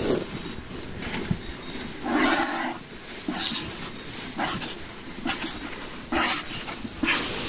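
Cow being hand-milked: short hissing squirts of milk striking the milking pail, roughly one a second, starting about two seconds in.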